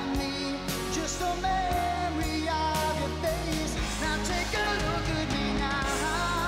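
Background pop music with a singing voice over a bass line that changes note every second or two.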